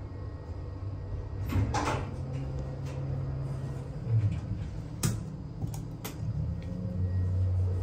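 Dover traction elevator's sliding car doors at a landing: a door rush about two seconds in, then a few sharp clicks around five to six seconds as the door-close button is pressed, with the doors closing near the end. A low steady hum runs throughout.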